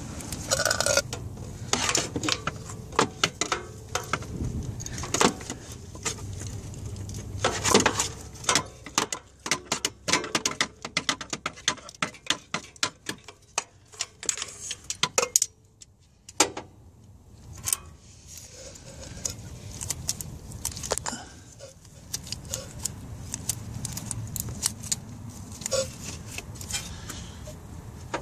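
Metal hand tools clinking and clicking against engine parts: a run of irregular sharp metallic clicks and taps, with a short lull about halfway through.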